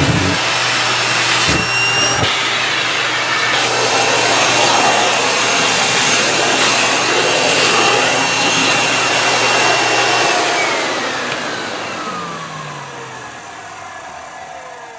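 National MC-250c vacuum cleaner running steadily with a high motor whine, with two short knocks about two seconds in. About ten seconds in it is switched off and the motor winds down, its whine falling in pitch as the sound fades.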